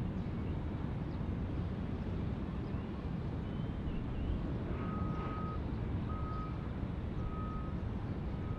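Steady low rumble of distant jet engine noise. From a little past halfway, a high electronic beep repeats about once a second.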